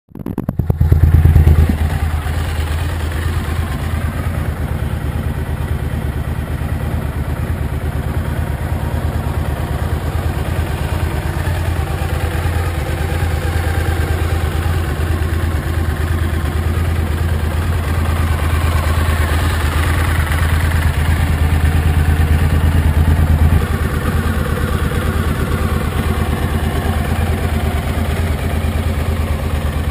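Suzuki V-Strom 1000's V-twin engine running steadily as the motorbike is ridden, getting a little louder for a few seconds past the middle and then easing off.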